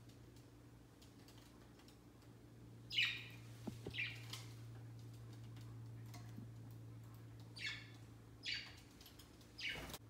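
Pet budgerigars giving short, high chirps, about five of them spaced apart, the first about three seconds in.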